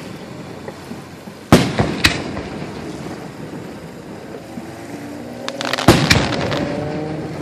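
Fireworks shells bursting: a loud bang about a second and a half in and another half a second later, then a cluster of sharp cracks and bangs around six seconds in, each dying away in a rumbling echo.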